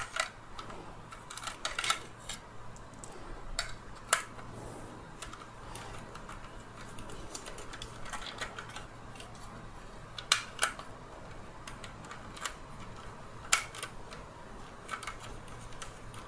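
Handling noise from the plastic body of a Dyson V10 cordless vacuum being turned over and worked on by hand: scattered light clicks and knocks with long gaps between them, over a faint steady low hum.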